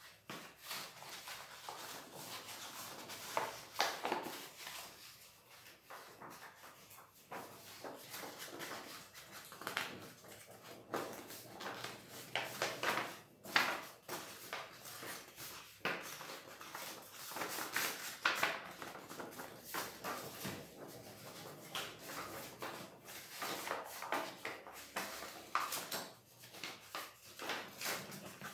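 Stiff paper rustling and crackling as it is handled, flexed and folded, with irregular crinkles and a few sharper crackles.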